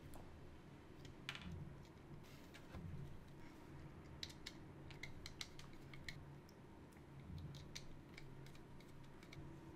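Faint, irregular small clicks and taps of wire ends and the plastic back of a smart wall switch being handled while the wires are fitted into its terminals, thickest in the middle of the stretch, over a low steady hum.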